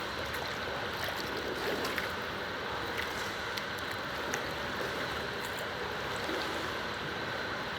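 Swimming-pool water lapping and running steadily, with small scattered splashes and drips.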